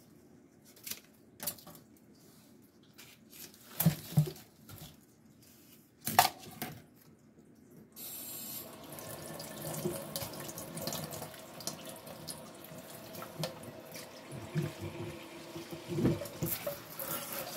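A few knocks in the first half, then a kitchen faucet turned on about eight seconds in, running steadily into a stainless steel sink over a potted houseplant.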